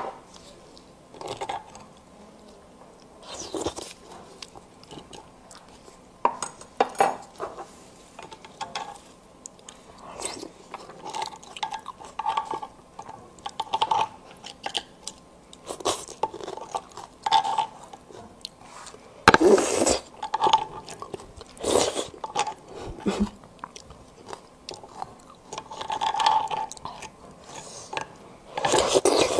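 Close-miked eating sounds: a small metal spoon scraping and clicking against split roasted beef marrow bones as the marrow is scooped out, with chewing in between. One louder sharp knock about two-thirds of the way through.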